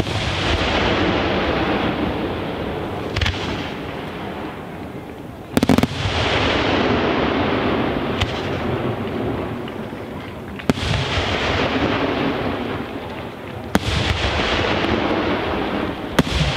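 Aerial firework shells bursting: a sharp bang about every two and a half to three seconds, each followed by a long rolling rumble and crackle that fades away. The loudest is a double bang about halfway through.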